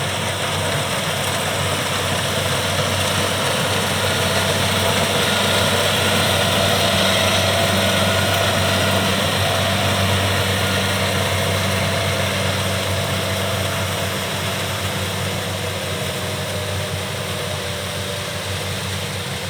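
Kubota rice combine harvesters running with a steady diesel engine drone and the noise of the threshing machinery working. The sound grows louder toward the middle as a machine comes closer, then eases off.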